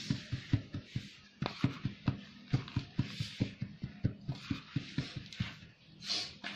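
Rapid, uneven light knocking, several knocks a second, as the dental cast mould being filled with dental stone slurry is tapped and shaken against the bench. The tapping settles the mix so it runs fully into the mould without gaps or air pockets.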